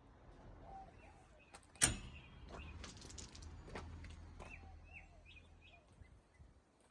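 A few short, faint bird chirps over a low steady hum, with one sharp knock about two seconds in.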